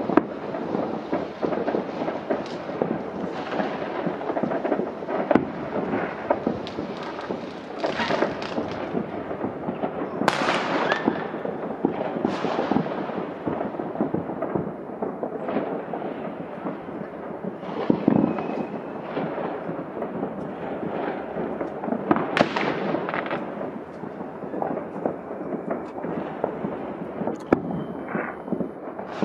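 Fireworks display: a continuous barrage of aerial shell bursts, with bangs and crackling over a steady rumble and several louder single reports.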